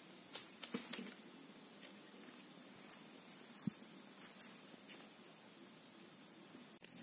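A few light clicks and snaps of dry twigs as a small, smoky campfire of sticks and leaves is tended by hand, over a steady high-pitched insect buzz.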